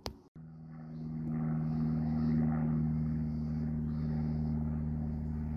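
A steady engine drone, a low hum at a constant pitch that swells in about a second in and then holds steady, after a short click at the very start.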